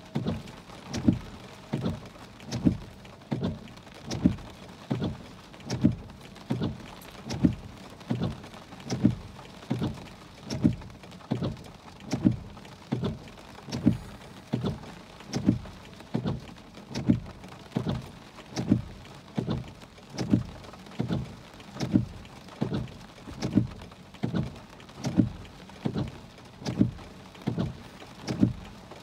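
Car windshield wipers sweeping back and forth in a steady rhythm, a thump at the end of each stroke a little more than once a second, alternating stronger and weaker, over rain hitting the car.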